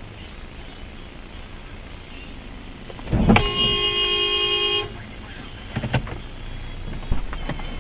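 Car horn sounding once, held for about a second and a half, over steady road noise.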